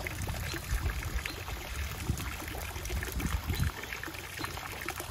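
Small backyard pond waterfall splashing steadily down rocks into a koi pond.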